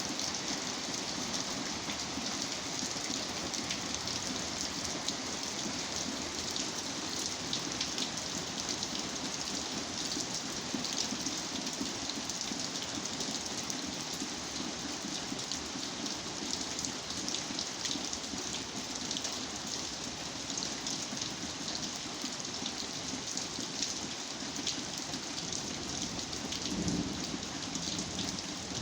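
Steady rain falling, a dense patter of many individual drops. A brief low rumble comes near the end.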